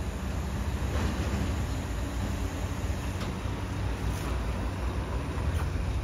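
Steady low vehicle engine rumble, with a few faint clicks about one, three and four seconds in.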